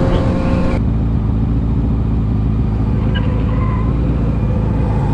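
Motorcycle engine running steadily while riding, heard from the rider's on-board camera, with a dense low hum. About a second in, the sound changes abruptly and the high hiss drops away, leaving the low engine hum.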